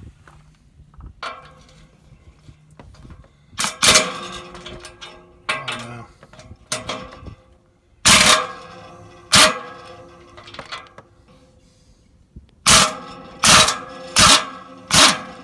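Sharp metal clanks, each ringing on briefly, about ten of them in irregular clusters: metal parts being struck or handled during work on a baler's pickup.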